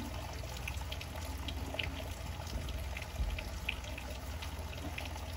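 Hot-spring water pouring in two thin streams from spouts into a shallow stone bath, splashing and trickling in many small spatters, over a low rumble.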